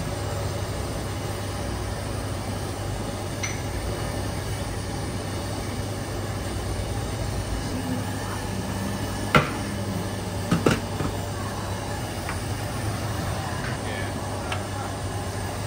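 Metal spoon and steamer knocking as custard cups in a round metal steamer tray are filled: one sharp knock about nine seconds in and a quick double knock a second later, over a steady low hum and rumble.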